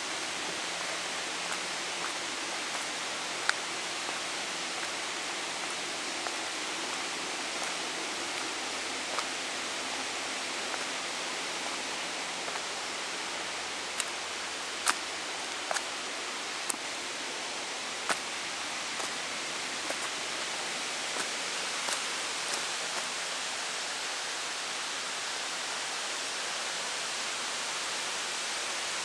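A steady, even hiss with scattered short sharp clicks, several of them close together about halfway through.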